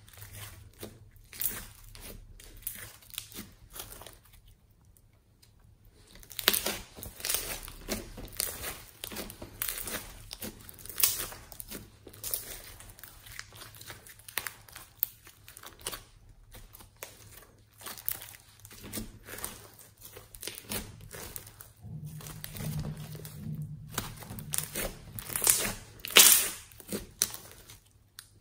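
Hands squishing, kneading and stretching a pink slime mixed with small beads, giving dense, irregular crackles and pops. There is a quieter stretch about five seconds in, and the loudest pops come near the end.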